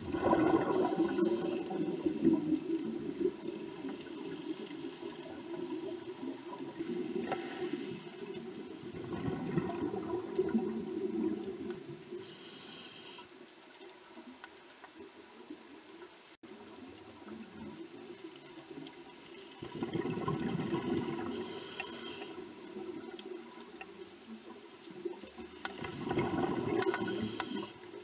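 Scuba diver breathing through a regulator underwater: bursts of exhaled bubbles gurgling for a few seconds at a time, every several seconds, with short high hisses of air through the regulator.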